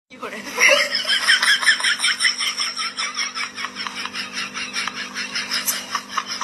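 Rapid, rhythmic laughter, dropped in as an edited sound effect, with even pulses about five or six a second that start and stop abruptly.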